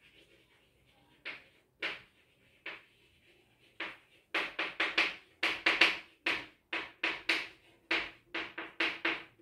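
Chalk writing on a blackboard: short scratchy strokes, a few scattered ones at first, then a quick run of about three to four strokes a second from about four seconds in.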